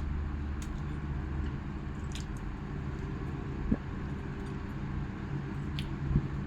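A steady low mechanical hum, with a few small clicks and taps scattered through it.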